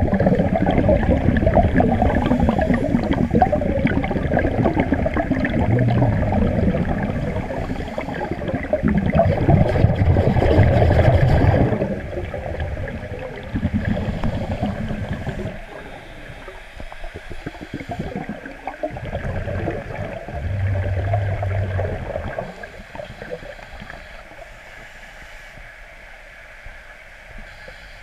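Underwater bubbling from a scuba octopus (alternate second-stage regulator) leaking air. This is a typical fault in some octopus mountings: air left inside from the surface, or let in by pressing the purge button while stowing it, is compressed and presses on the diaphragm. The bubbling is loud and continuous for about the first twelve seconds, then breaks into shorter, quieter bursts of bubbles.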